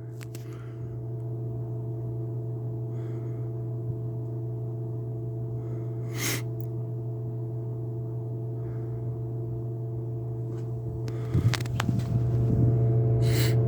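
Second-generation Kmart K223 box fan running on low after sitting unused for a long time: a steady electric motor hum with two sharp knocks, growing louder about eleven seconds in.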